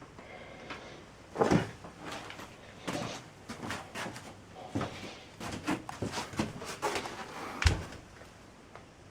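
A string of knocks and clatters from objects being handled and set down, about a dozen in all, with two heavier thumps, one about a second and a half in and one near the end. No motor is running.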